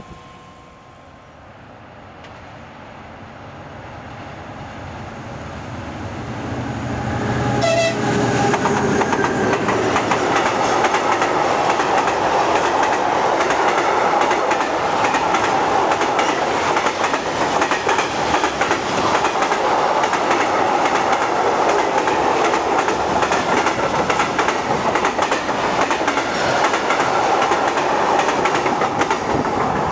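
A MÁV class 628 (M62) diesel locomotive hauling a freight train, its engine rumble growing louder as it approaches. About eight seconds in the sound becomes abruptly loud: tank wagons rolling past close by with a steady clickety-clack of wheels over the rail joints.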